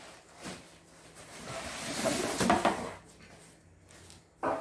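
Cardboard box flaps, styrofoam packing and plastic wrap rustling and scraping as a boxed air fryer is lifted out of its carton. The sound builds from about a second in and is loudest around two and a half seconds in.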